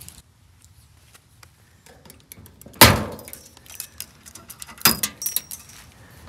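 Metal hooks and buckles of tie-down straps clinking and clattering as the straps are taken off a car's hood. There are scattered light clicks and two sharp clacks, the louder about three seconds in and the other about two seconds later.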